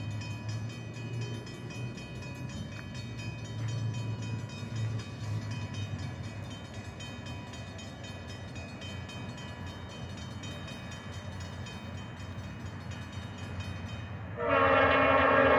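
Norfolk Southern #1648, a diesel locomotive, rumbling low as it approaches. Near the end its air horn comes in suddenly and loudly, several tones sounding together as one chord.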